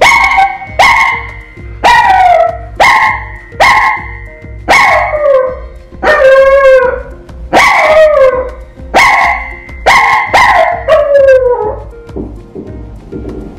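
A Maltese dog barking over and over, roughly once a second, each bark drawn out and falling in pitch, over background music with a steady beat. The barking stops about twelve seconds in.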